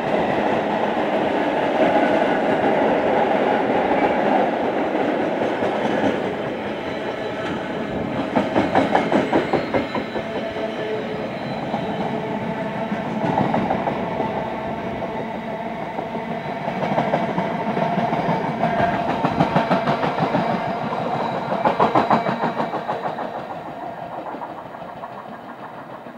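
Freight train of car-carrier wagons rolling past, its wheels clattering over the rail joints in repeated runs of rhythmic clicks over a steady rumble. The sound fades away near the end as the train recedes.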